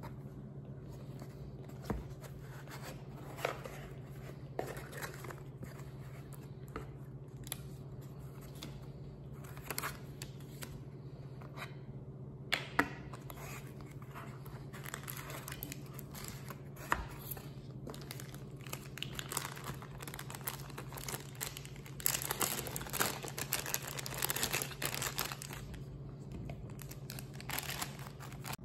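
Small cardboard box and its insert being handled and opened: scattered rustling, scraping and small knocks of cardboard, with a denser stretch of crinkling and rustling about three-quarters of the way through. A steady low hum runs underneath.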